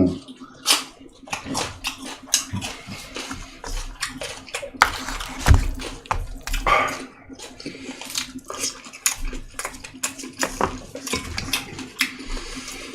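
Close-up chewing and wet mouth smacking, with frequent short irregular clicks and a few louder smacks midway, over a faint steady hum.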